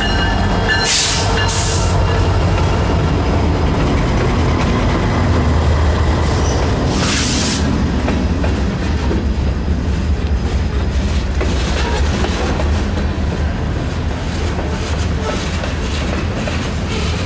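Norfolk Southern freight train passing close by: the diesel locomotives rumble past, then loaded covered hopper cars roll by with steady wheel clatter over the rail joints. Three brief high-pitched bursts of noise stand out, about a second in, near two seconds and around seven seconds.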